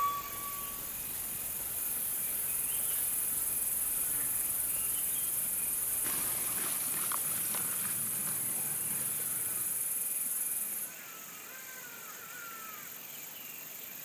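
Steady high-pitched chorus of insects in tall grass, cutting off suddenly about eleven seconds in and leaving a fainter background.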